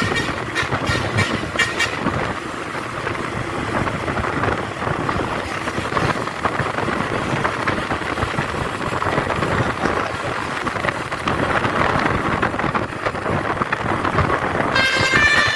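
Bus engine and road noise, a loud rushing that rises and falls. The multi-note telolet musical air horn starts up again near the end.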